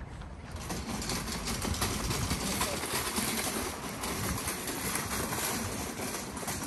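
City street sound: indistinct voices of passers-by over a steady rushing background noise, growing louder about half a second in.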